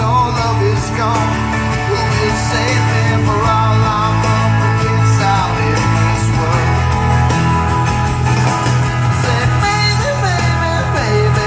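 A man singing into a microphone over a loud rock backing track with guitar and a heavy bass line, amplified through speakers.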